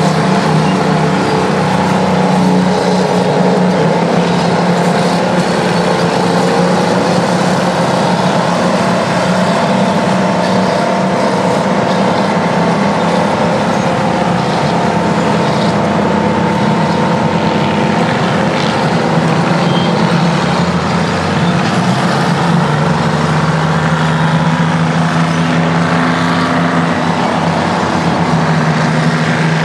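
Detroit two-stroke diesel engine of a Terex bulldozer or scraper running steadily and loudly while working, its engine speed shifting slightly now and then.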